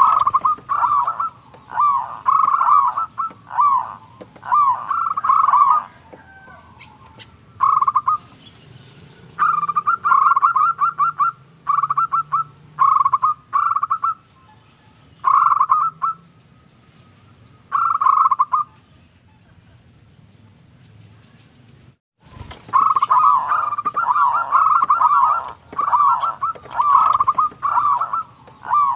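Zebra dove singing: bursts of rapid, staccato cooing notes, repeated with short pauses. The song stops for about three seconds past the middle, then starts again.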